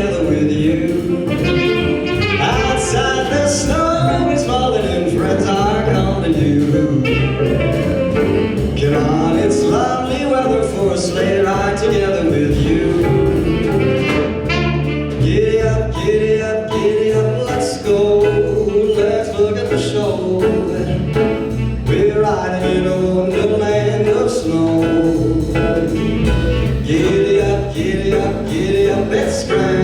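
Live music with singing over instrumental accompaniment, played continuously at a steady loud level.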